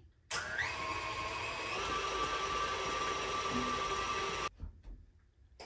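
Electric stand mixer beating cake batter: the motor starts up, its whine rising in pitch as it speeds up to medium, runs steady, then cuts off suddenly about four and a half seconds in.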